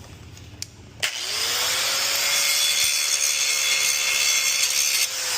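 Angle grinder starting about a second in and grinding a spot on the stunt bike's frame down to bare metal for the welder's ground clamp: a steady hiss over a motor hum that climbs quickly as it spins up. Near the end the disc lifts off the metal and the motor winds down with a slowly falling hum.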